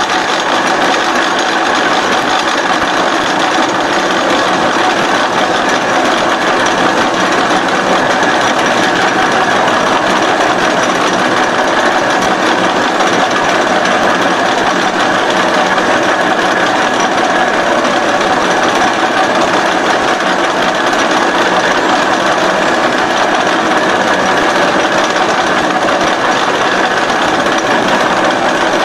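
Jinan Supertime SXA55 CNC H-beam bevelling machine running, its milling cutter head working the edge of the beam's flange. The machining noise is loud and steady and does not change.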